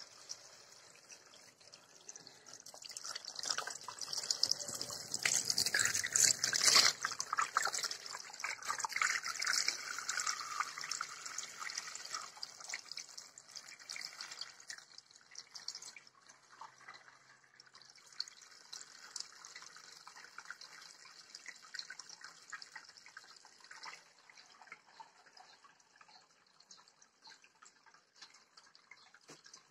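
Water running from a hose into a cloth bag in a plastic crate, splashing and trickling. It is strongest a few seconds in, then eases off to a thinner trickle and drips.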